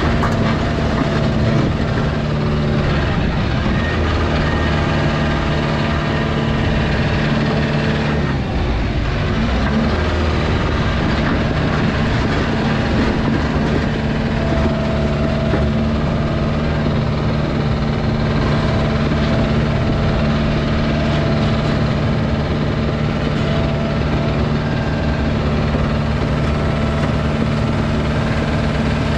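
Excavator's diesel engine running steadily at working speed, with a higher steady tone joining about halfway through.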